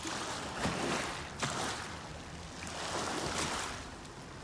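A rushing noise that swells and eases, with two brief knocks about half a second and a second and a half in.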